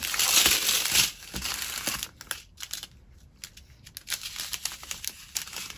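Plastic packaging crinkling as it is handled, loudest in the first second, then lighter crinkles and scattered ticks.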